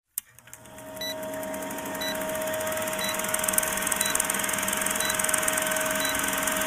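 Film-countdown sound effect: an old film projector running with a rapid clatter and hiss over a steady hum, fading in over the first second, with a short beep once a second.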